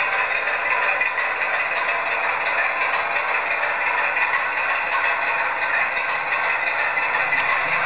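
Bachmann 00 gauge Class 25 diesel model running under its LokSound sound decoder: a steady rattling engine sound from the small onboard speaker, mixed with the noise of the model running on the track.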